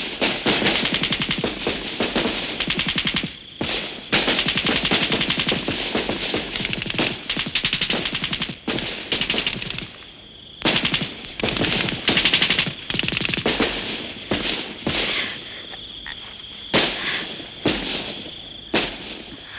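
Rapid gunfire in long bursts, broken by several short pauses.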